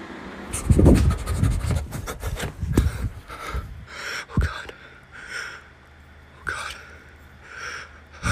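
A few low thumps and rustles near the start, then a string of short, breathy panting huffs, about one a second.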